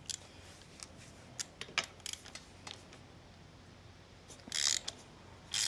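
Hand tools on the motorcycle's 12 mm front brake caliper bolts: scattered light metal clicks, then two short bursts of socket-wrench ratcheting near the end.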